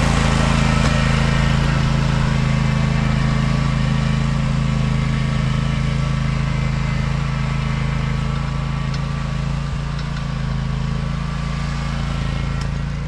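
John Deere Z530R zero-turn mower's engine running steadily at a constant speed while it pushes a snow plow, easing slightly quieter in the second half.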